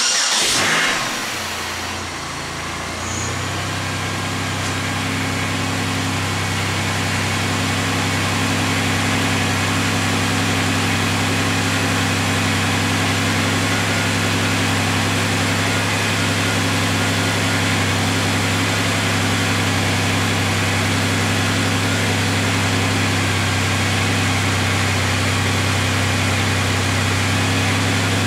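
Cold start of a 2004 Pontiac Grand Prix's 3.8-litre V6: the engine starts abruptly with a brief loud burst, dips and picks up over the first few seconds, then holds a steady idle.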